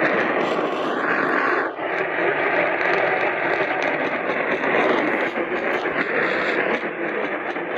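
Loud, steady static hiss from a radio receiver on a weak signal, the emergency alert broadcast lost in it, with a brief dip just under two seconds in.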